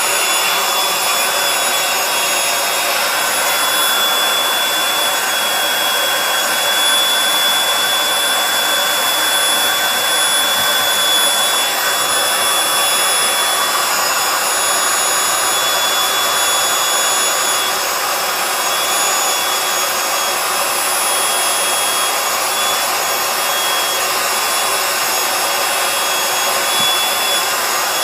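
Small corded electric blower running steadily, with a high motor whine over rushing air, as it pumps air into a vinyl inflatable chair through its valve.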